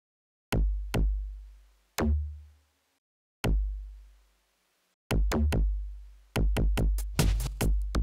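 Opening of an electronic track: single drum-machine kick-drum hits at uneven gaps, each with a long low tail. From about six and a half seconds in the hits come several a second and fill out into a steady beat.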